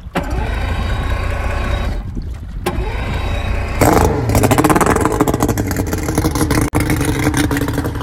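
A motorboat's outboard engine running close by, its pitch dipping and then rising as it revs about four seconds in.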